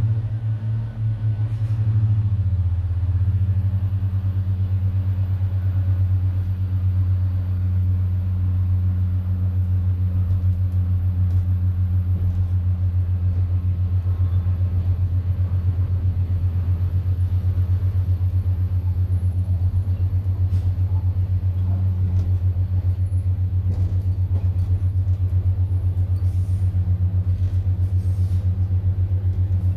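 Underfloor diesel engine of a Pacer railbus heard from inside the carriage: a loud, low, steady drone with a fast regular pulse. Its pitch shifts during the first two seconds and then holds steady as the train gets under way.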